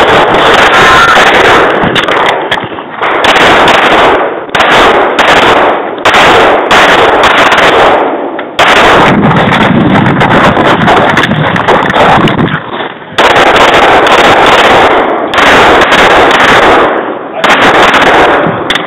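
Rapid strings of pistol shots from a Smith & Wesson M&P, fired at arm's length and loud enough to pin the recording at full scale, with a few short pauses between strings.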